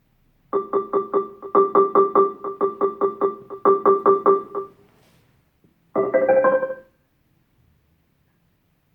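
Electric-piano-like tones played through a Harman Kardon Onyx Studio 3 Bluetooth speaker: a run of quick repeated notes at one pitch, about four a second, for roughly four seconds. After a short pause comes a brief chime of rising notes.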